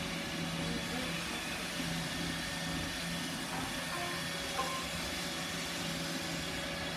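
Roomba robot vacuum running, a steady motor hum and brush whir, with a small click about four and a half seconds in.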